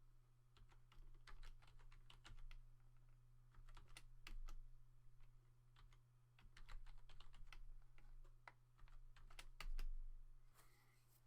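Computer keyboard keys being typed on, faint, in irregular runs of clicks, over a steady low electrical hum.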